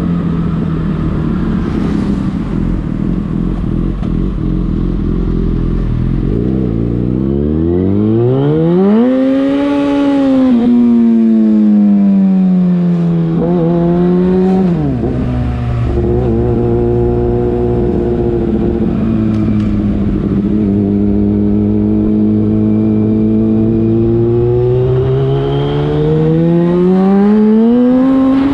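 Yamaha FZ6 inline-four engine through a LeoVince aftermarket exhaust, the bike being ridden. The revs climb for a few seconds, ease off, and drop sharply about halfway. The engine then holds a steady note before the revs rise again near the end.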